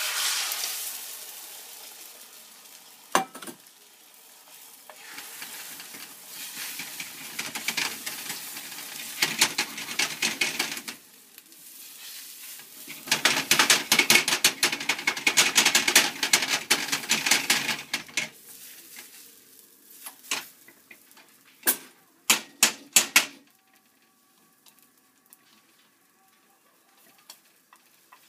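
Beaten egg hits a hot frying pan and sizzles loudly, fading over the first few seconds. Chopsticks then stir and scrape the setting egg against the pan in spells, the busiest a little past the middle. A handful of sharp knocks on the pan follow, after which it goes nearly quiet.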